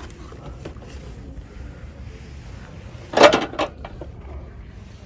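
Low steady background hum with a short loud clatter about three seconds in and a fainter knock just after it.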